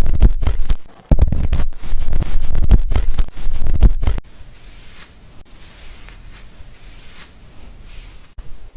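Hands scrubbing wet, lathered hair and scalp right against the microphone during a shampoo: loud rubbing and crackling, heavy in the low end, with a short break about a second in. It stops abruptly about four seconds in, leaving a quiet hiss.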